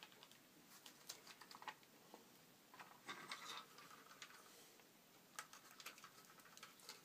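Near silence with faint scattered clicks and soft rustles: hands handling a plastic model tank hull taped together with sellotape.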